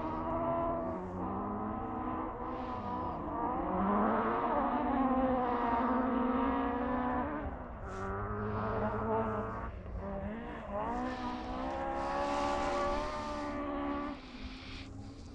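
Rally car engine at full effort on a gravel special stage, heard on board: the revs climb and fall repeatedly through gear changes, with road and tyre rumble underneath. About fourteen seconds in, the engine note falls away as the driver lifts off.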